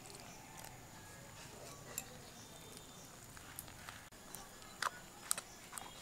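Faint wet squishing and clicking of a thick sweet-potato-and-flour batter being worked together with milk, with a few sharper clicks scattered through.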